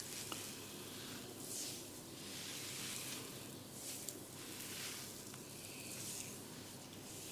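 Hair and scalp being rubbed during a head massage: repeated raspy strokes about once a second, with a couple of light clicks.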